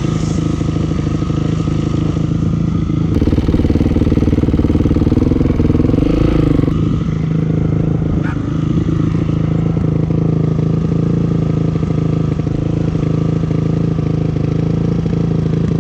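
Dirt bike engine running steadily, its pitch rising briefly about six seconds in as the throttle opens, then dropping back.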